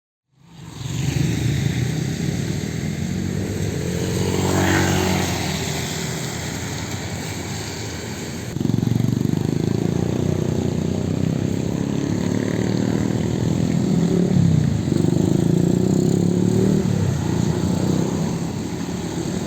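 Road traffic with vehicle and motorcycle engines running close by, beginning about half a second in and getting louder about eight and a half seconds in.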